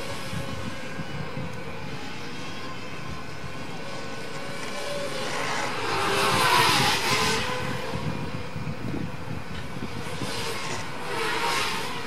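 Racing hexacopter's six brushless motors and propellers buzzing in flight, a steady high-pitched whine that swells louder and hissier about six seconds in, and again briefly near the end.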